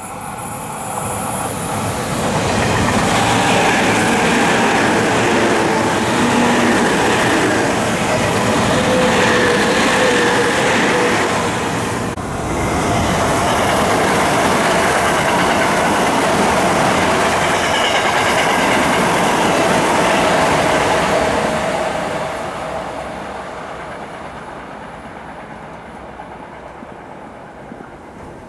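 Electric commuter trains running past at speed: wheels rumbling on the rails with a steady whine from the traction motors. The first is a Tobu 30000 series. A sudden break about twelve seconds in leads to a second commuter train passing, whose sound fades away over the last several seconds.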